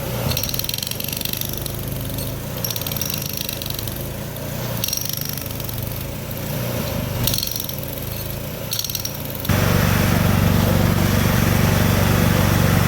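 Hydraulic impact tool (hydraulic breaker) breaking ground over the steady drone of its engine-driven power unit, hammering in short bursts. About three-quarters of the way in it turns into louder, continuous running.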